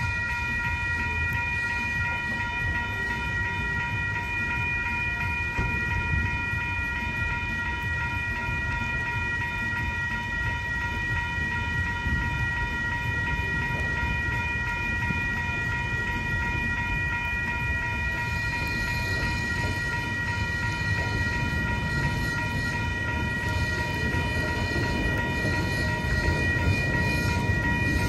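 Railroad crossing warning bell ringing steadily while the crossing signals are active, over a low rumble. Freight train noise grows in the last seconds as rail cars roll across the crossing.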